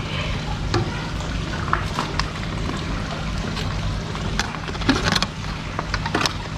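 Clicks and knocks of a plastic aquarium air-pump housing and its air hose being handled and set down in a concrete box, a few in the first two seconds and a tighter cluster near the end, over a steady hiss and low hum.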